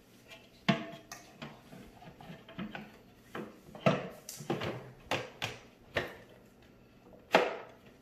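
Clear plastic dirt canister of an upright vacuum being fitted back onto the vacuum body, with the motor off: a string of sharp plastic knocks and clicks, irregularly spaced.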